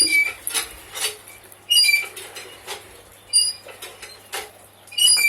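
A talking parrot's short high-pitched squeaks, a handful spaced about a second and a half apart, with faint clicks and taps in between.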